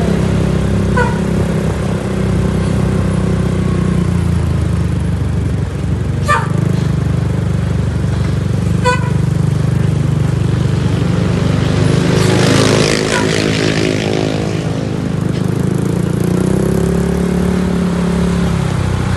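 Steady engine drone of vehicles on the road, with a heavier vehicle rushing past about twelve seconds in and its engine pitch rising, plus three short high beeps at intervals.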